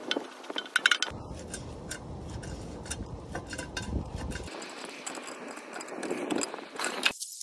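Light metallic clinks and handling noise as a spin-on oil filter is fitted by hand under a diesel truck, with a cluster of sharp clicks in the first second and a low rumble in stretches. The sound cuts off suddenly near the end.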